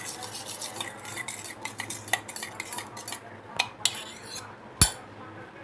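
A spoon stirring and scraping raw chicken with turmeric, cumin and oil in a metal vessel, off the heat, in quick clinks and scrapes. This is followed by a few sharper clicks and one loud knock near the end.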